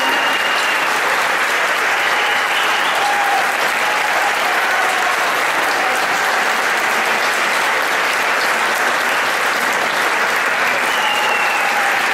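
Audience applauding steadily in a concert hall, the clapping continuous at an even level.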